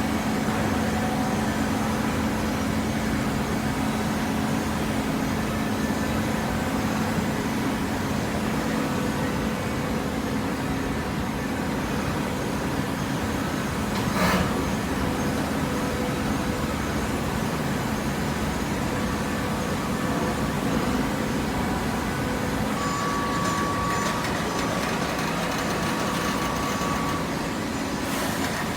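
Baling press machinery running with a steady low hum, and a single sharp knock about halfway through. A thin high tone sounds briefly near the end.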